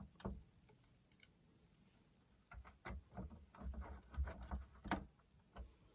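Faint, scattered clicks and light knocks of plastic boombox casing parts being handled and fitted together, mostly in the second half.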